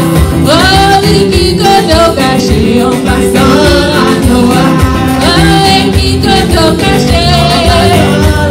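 Live gospel praise-and-worship song: several women singing into microphones over an instrumental accompaniment with sustained low bass notes.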